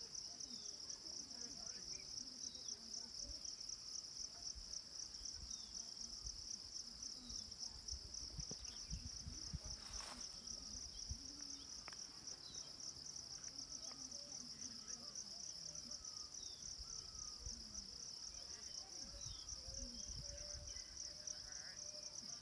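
Insect chorus: a steady, high-pitched, rapidly pulsing buzz, with faint distant voices now and then.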